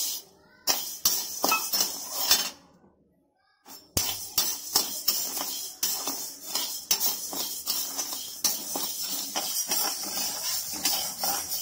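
Urad dal pouring into a dry kadai, then a perforated steel ladle scraping the pan and stirring the lentils as they dry-roast: a busy run of scrapes and rattling clinks. There is a short near-silent break about three seconds in.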